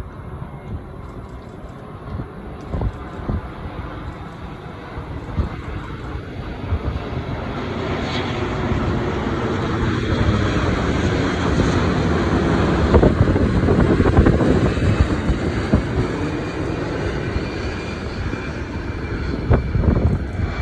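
Boeing 787-10 Dreamliner's jet engines on its landing approach, swelling into a loud roar as it passes, loudest about two-thirds of the way through, then easing off. Wind gusts buffet the microphone.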